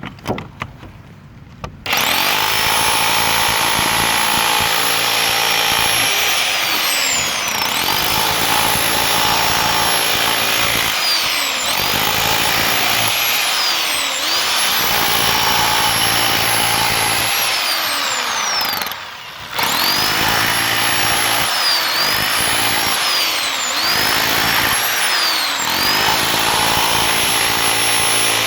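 Bauer 1641E-B electric rotary hammer chipping concrete: a few knocks, then the tool starts about two seconds in and runs hard, its motor pitch sagging and recovering every couple of seconds as the bit bites. It stops briefly about two-thirds of the way through, then starts again.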